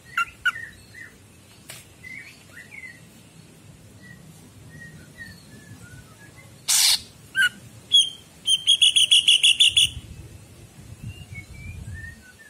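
Cucak ijo, a green leafbird, singing in bursts: scattered short chirps and whistles, a loud harsh rasping note, then a fast rattling trill of about nine repeated notes a second, the loudest part, near the end.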